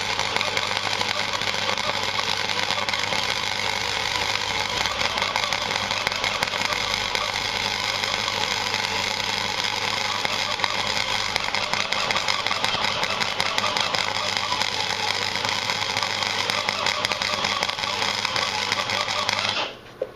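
Gasless flux-core welder arc running a bead: a loud, steady crackle and sputter over a low hum, cutting off suddenly near the end. The arc is kicking a bit, which the welder puts down to slag build-up on the nozzle.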